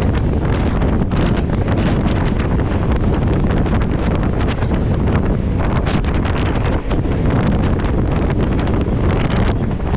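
Loud, steady wind rushing over the microphone held out of the window of a moving electric local train (EMU), mixed with the train's running noise.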